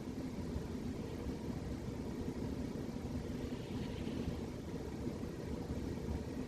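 Domestic cat snoring in its sleep: a steady low rumble, with a faint breathy rasp rising over it twice, a few seconds apart.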